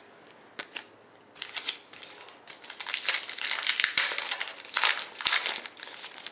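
Crinkly plastic wrapping of a trading-card pack being handled and torn open. A few sharp clicks come first, then dense crinkling that is loudest in the second half.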